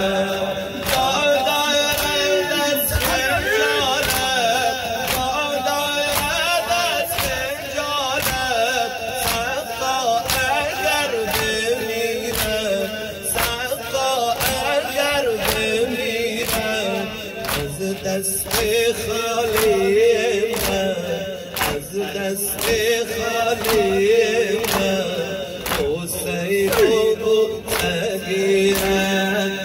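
A male eulogist chanting a Shia mourning lament (noha) through a microphone, while mourners beat their chests in unison, a steady rhythm of sharp slaps under the voice.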